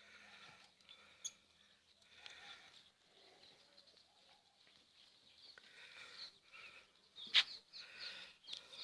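Faint animal calls, short pitched cries repeating throughout, with a sharp click or knock about seven seconds in.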